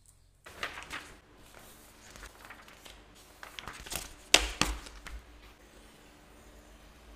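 Printed paper pattern sheets being handled and shuffled, rustling and crinkling in a string of short crackles, with one sharp, loud crackle of paper about four seconds in.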